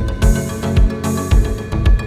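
Background music with a steady beat, about two bass beats a second.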